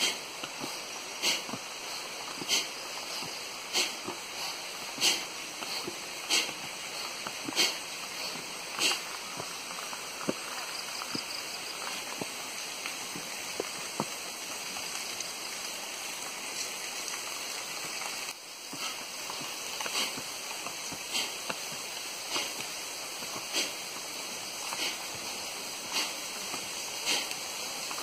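Footsteps climbing concrete steps, a regular tread about once every second and a quarter, pausing for a while midway, over a steady rush of running water.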